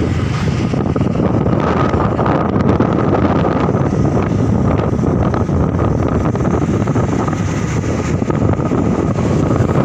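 Wind rushing and buffeting over the microphone while riding along a road, over the steady drone of the moving vehicle.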